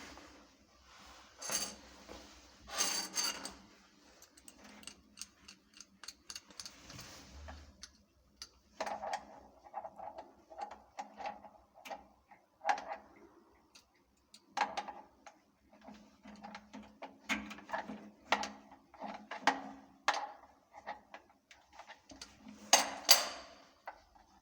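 Irregular knocks, clicks and clatter of a basin sensor tap and its fittings being handled, with a steady hiss during roughly the first seven seconds.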